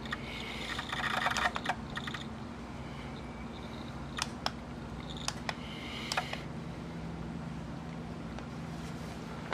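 Pioneer CT-W840R cassette deck's right-side tape mechanism running with a steady low hum, broken twice by bursts of clicking and rattling, the struggling noises it makes while playing a good tape.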